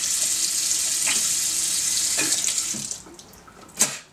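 Kitchen tap running water into a stainless steel sink, cutting off about three seconds in. A brief sharp sound follows shortly before the end.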